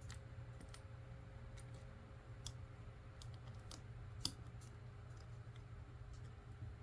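LEGO pieces clicking as they are handled and pressed into place: a scattering of small, sharp clicks, the loudest about four seconds in, over a faint low hum.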